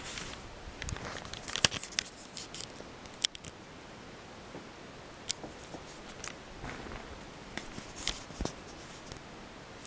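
Handling noise from a camera being picked up and moved over bedding: fabric rustling with irregular sharp clicks and knocks, in two clusters with a lull between them.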